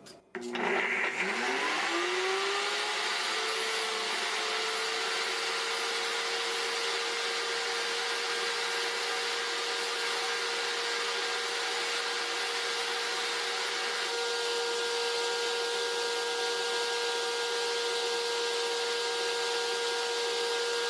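NutriBullet RX blender motor starting with a rising whine about half a second in, then running at a steady pitch, with a second, higher whine joining about fourteen seconds in. It is running on almond butter that it cannot move, and the motor is overheating to the point of smelling burnt.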